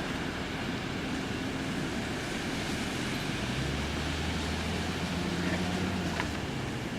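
A vehicle engine humming under steady rushing noise. The hum grows louder and higher about halfway through, then settles back near the end.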